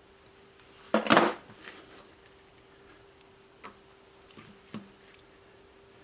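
T-handle tire plugger pushing a glued plug into a tire puncture: one short rasping scrape about a second in, followed by several light metal clicks.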